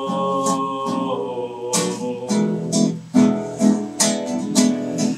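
A sung line ends on a long held note. From about a second and a half in, an acoustic guitar (violão) strums a rhythmic chord accompaniment.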